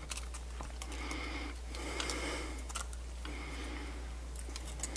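Faint handling of a small plastic CD drive mechanism in the hands: a few light clicks and soft rustles over a steady low hum.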